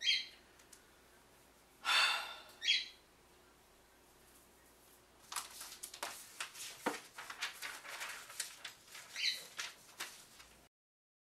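Typing on a laptop keyboard: a run of irregular clicks starting about five seconds in and lasting about five seconds. Before it come three short breathy noises, the loudest things in the stretch, and one more comes during the typing.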